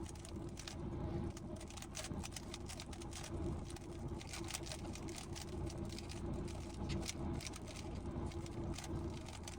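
Rubik's cube being turned: a run of irregular, quick plastic clicks from the layer turns, over a steady low hum.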